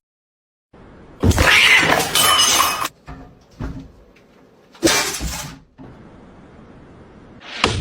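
A cat crying out loudly in short bouts, the first about a second in, another near five seconds and a third starting near the end, after a moment of silence.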